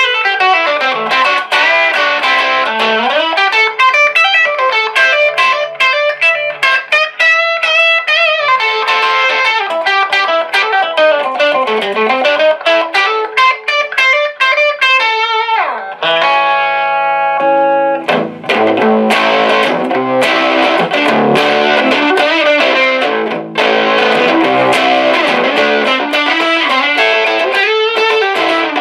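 1960 Silvertone 1423 Jupiter electric guitar with DeArmond pickups, played amplified: fast picked single-note runs, with a held chord ringing out about halfway through before the busy picking resumes.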